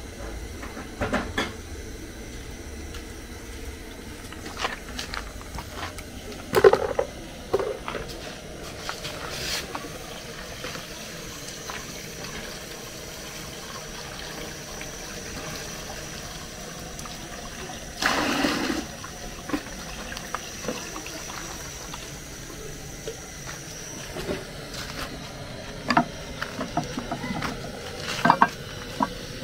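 Water from an outdoor tap running and splashing into a plastic bowl as fish is rinsed, with scattered knocks and clinks of pots, lids and utensils. A louder splash about a second long comes midway through.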